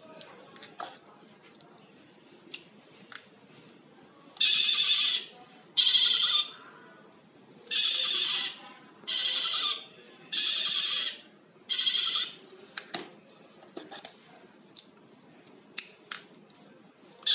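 Sound chip in a novelty alpaca-head LED ball pen playing short electronic animal-call effects through its tiny speaker: six high, tinny bursts of about a second each in the middle. Before and after them come light plastic clicks and taps as the pens are pressed and handled.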